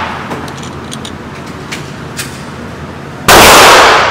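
A single handgun shot about three seconds in, loud enough to max out the recording, with the indoor range's echo ringing after it. The echo of an earlier shot fades away at the start, and a few faint clicks fall in between.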